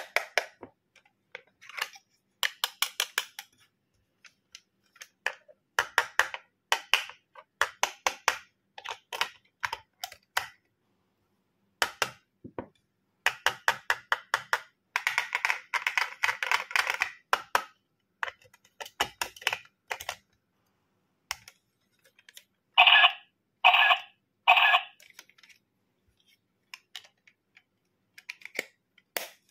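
Small plastic toy camera being handled at its battery compartment: runs of quick clicks, taps and scrapes as the cover comes off, a small tool works at the batteries and spring contacts, and the cover goes back on. Three louder snaps come in quick succession a little past two-thirds of the way through.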